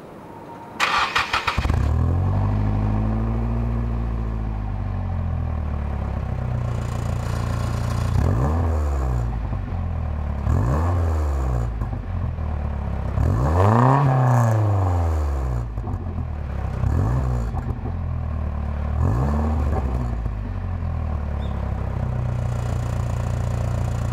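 Nissan Silvia S15's naturally aspirated SR20DE four-cylinder breathing through a Reinhard Takumi 100 mm dual muffler with both outer and glass-wool inner silencers fitted. About a second in it cranks briefly and catches with a flare of revs that settles to idle, then takes five throttle blips, the highest a little past halfway.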